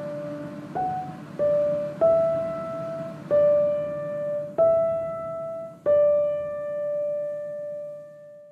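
Background piano music: a slow melody of single notes struck one after another, the last note held and fading away near the end.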